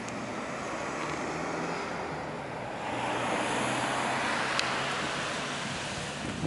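Road traffic noise: a steady wash that swells as a vehicle goes past about three seconds in, with a faint low hum underneath.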